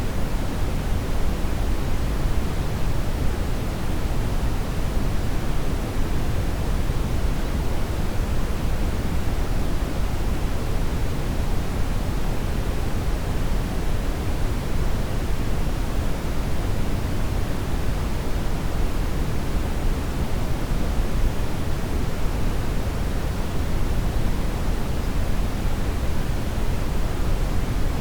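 Steady brown noise: a deep, even rushing hiss, heaviest in the low end, with no changes.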